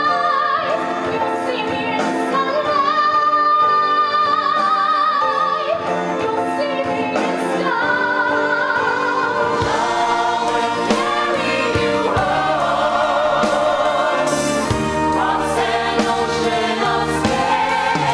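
Musical-theatre ensemble singing in chorus over instrumental accompaniment, with a high voice holding notes with vibrato in the first few seconds. About halfway through a low bass and percussion come in and the sound grows fuller.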